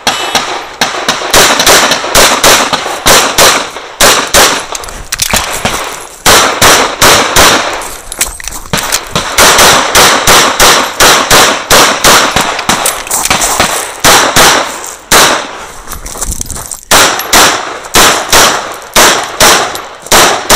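CZ 75 SP-01 AccuShadow 9mm pistol fired rapidly in a USPSA stage run: strings of shots, many in quick pairs, with brief pauses between strings.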